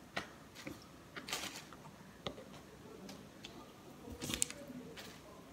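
Hands pulling raw chicken meat off the bone: faint, irregular wet squelches and small clicks, the loudest cluster about four seconds in.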